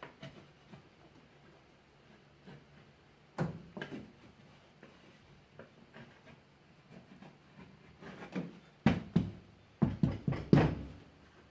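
Knocks and thumps of a flat glass pane in a new rubber gasket being worked into a step van's window opening, with a cluster of loud knocks about nine to eleven seconds in.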